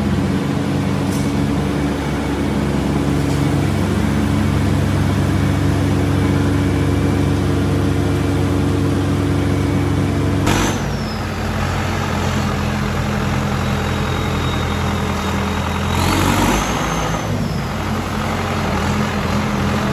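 A vehicle engine runs steadily. About halfway through the sound changes abruptly, and a few seconds later a short whine rises and falls.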